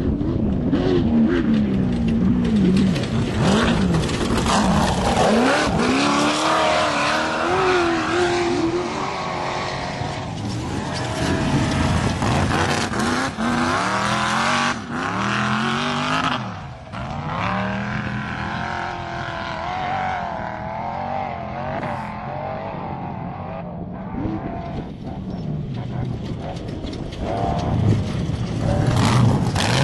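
Off-road race truck engines running hard as the vehicles go by, the pitch rising and falling again and again as they rev up and shift.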